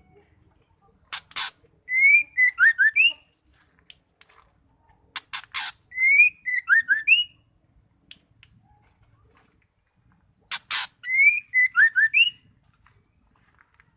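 Female white-rumped shama calling: a short harsh rasp followed by a quick run of rising whistled notes, the phrase repeated three times about four and a half seconds apart.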